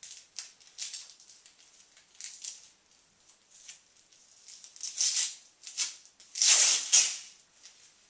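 Bursts of dry rustling and scraping as self-adhesive velcro strips and their backing paper are handled and pressed onto a cardboard shelf, the loudest about five and six and a half seconds in.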